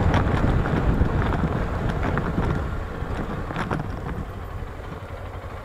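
Wind rushing over the microphone of a small single-cylinder motorcycle riding a rough dirt track, the engine running under it, with a few knocks from the bumpy ground. The rumble eases off from about halfway through as the bike slows.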